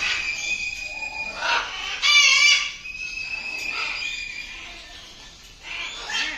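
Birds calling: a loud, harsh squawk about two seconds in, over a steady high, thin whistling tone and a few shorter calls.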